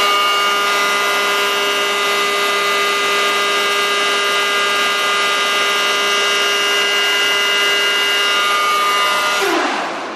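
Blower of a 1981 ACA Hurricane 130 MKII siren running on its own with a loud, steady whine and rushing air, then spinning down near the end, its pitch falling as it slows.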